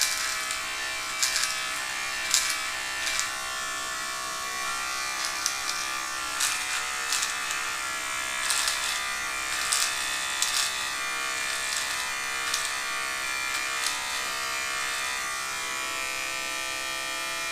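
Battery-powered electric beard trimmer running with a steady buzz, with short crackles here and there as the blade cuts through stubble. Its battery is starting to run low.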